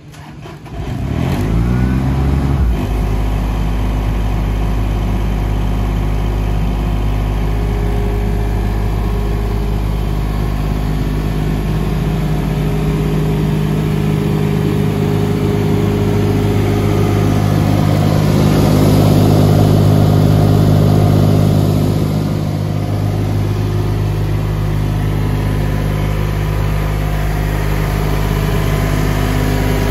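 Kaeser M27 mobile compressor's Kubota diesel engine starting: a short crank with rising pitch about a second in, then it catches and runs steadily, a little louder for a few seconds around the middle.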